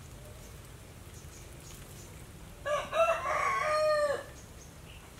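A rooster crowing once, a call of about a second and a half that starts about halfway through, its pitch dropping at the end.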